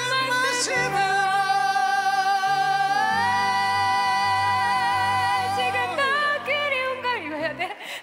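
A live pop-rock ballad with band backing. A singer holds one long high note with vibrato, steps it up in pitch about three seconds in, then breaks into shorter melodic runs near the end.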